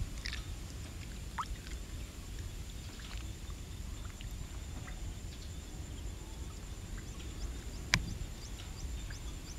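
Hands washing squid in a plastic bowl of water: light splashing and rubbing, over a steady low rumble, with one sharp knock about eight seconds in.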